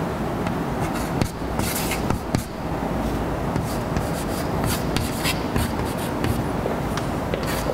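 Chalk writing on a blackboard: a run of short scratching strokes and taps in several clusters, over a steady low background rumble.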